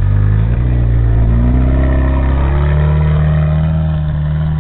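Engine of a 4x4 off-road trial buggy revving up as it pulls away, its pitch climbing for a couple of seconds and then holding steady.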